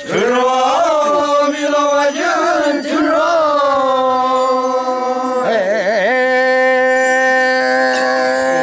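A group of Ollo Naga men chanting a traditional song in unison, drawing out long held notes over a steady low drone. About five and a half seconds in, the voices waver up and down before settling on a new held note.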